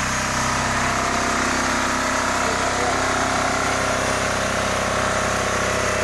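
Small single-cylinder diesel engine of a portable band sawmill running steadily as the saw head works a pass through the timber.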